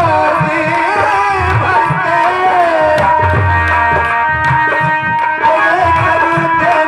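Live Nautanki stage music: a hand drum plays a steady rhythm of strokes under a sustained melody line.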